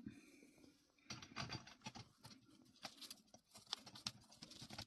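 Faint, irregular small clicks and light rustling as small metal press-stud parts and die pieces are handled and set in place.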